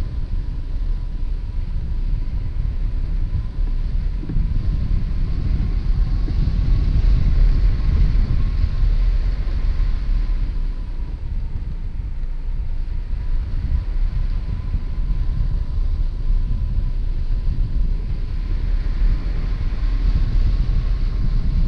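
Airflow rushing over a hang glider's wing-mounted camera in flight: a steady low buffeting rumble of wind on the microphone, with a faint thin whistle under it.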